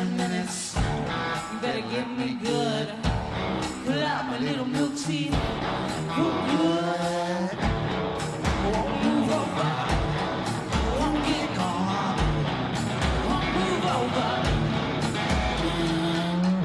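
Live rock music: a woman singing into a handheld microphone over electric guitar and a steady, repeating low drum beat.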